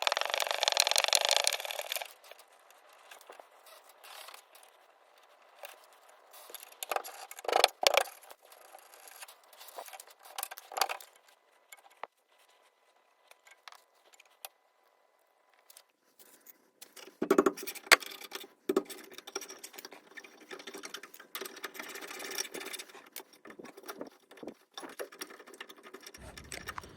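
Hand tools working on car rear brake calipers as they are unbolted and taken off: a quick run of rapid ratchet-like clicking, then separate metallic clanks and scrapes with quiet gaps, and lighter rattling near the end.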